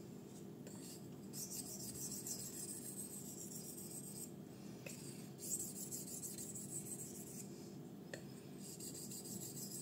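A 154CM steel knife blade stroked along a fine Belgian natural whetstone (about 6000–8000 grit), the last stone before stropping. It makes a high, hissing scrape in three stretches of two to three seconds each, with short pauses and a faint click between them.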